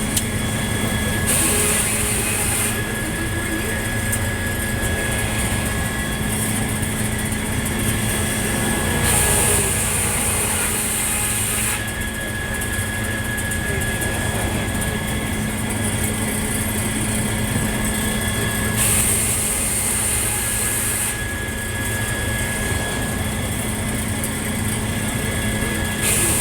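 Circular sawmill running with a steady machine hum and a constant tone. A high hiss comes and goes about four times, roughly every eight to ten seconds.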